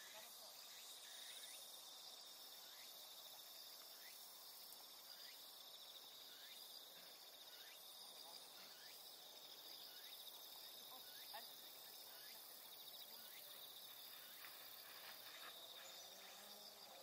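Faint, steady high-pitched trilling of insects, with faint short falling chirps every second or so.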